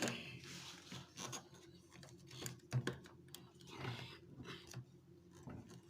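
Light, irregular clicks and taps of hard plastic vacuum cleaner parts and packaging being handled, with a brief rustle near the start.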